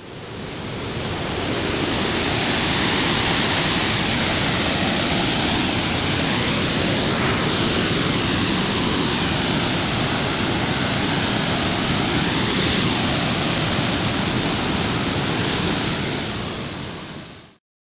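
Steady rushing noise, fading in over the first two seconds and cutting off sharply just before the end, with faint slow sweeps running through it.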